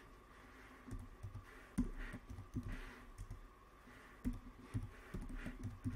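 Keystrokes on a computer keyboard: irregular taps in short runs, with a pause between runs.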